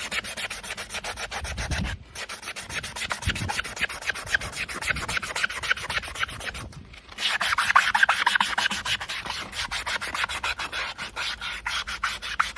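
Farrier's scrubbing block rubbed over a horse's hoof wall in fast back-and-forth strokes, a harsh scraping that is "a horrible noise". It stops briefly about two seconds in and again about seven seconds in, and is loudest just after the second pause.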